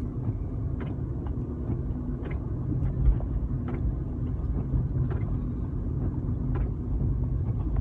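Car driving at road speed, heard from inside the cabin: a steady low rumble of tyres and engine. Faint light clicks come now and then, and a single low thump lands about three seconds in.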